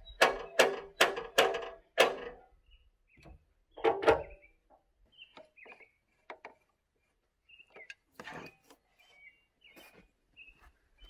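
Height adjuster of a Logosol F2 chainsaw mill ratcheting up notch by notch: five quick, sharp clicks at about two a second, which raise the mill a full inch for the next board, then one more click a couple of seconds later.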